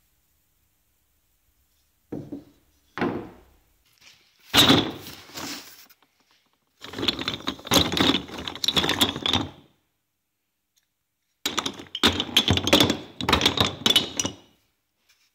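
Three separate knocks, then two spells of wooden spindles clattering against each other as a hand rummages through a cardboard box full of them.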